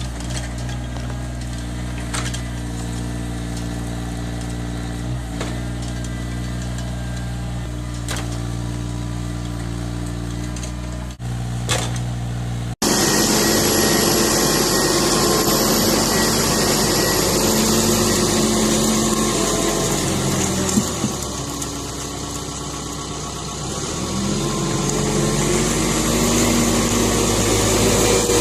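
An engine runs at a steady, even low hum. About 13 seconds in, an abrupt cut brings a louder, harsher engine sound with much more hiss, which eases briefly a little past the middle and then builds again.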